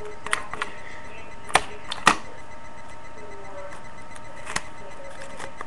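A few sharp taps and knocks from hands handling rolled paper and tape on a wooden desk: a quick cluster just after the start, two louder knocks around one and a half and two seconds in (the second the loudest), and one more near the end. Under them runs a steady hiss with a faint high whine.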